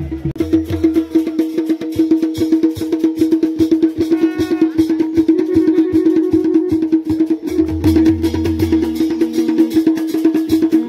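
Music with a fast percussion beat over a steady held drone, with deep bass notes coming and going.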